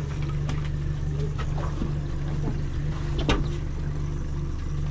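Boat's outboard motor running steadily with an even low hum, with a few brief knocks and clicks over it, the loudest about three seconds in.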